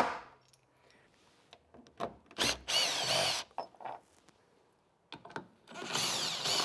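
Power drill-driver running in two short bursts, the first about two and a half seconds in, the second near the end, its motor pitch wavering as it undoes the bolts holding the storage unit's base.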